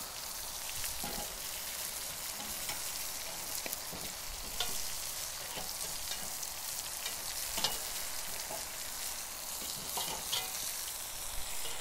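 Lamb shanks searing on a charcoal kettle grill's grate beside onions and garlic frying in a cast iron wok, sizzling steadily. A few short metallic clicks of tongs come as the shanks are turned.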